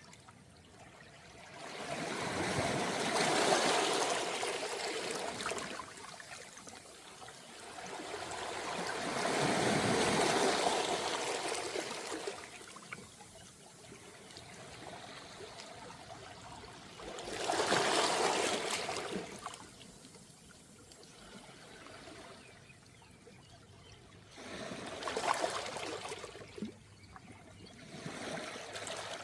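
Small, calm waves washing onto a beach of round pebbles with a trickling wash. Four waves swell and fade, several seconds apart.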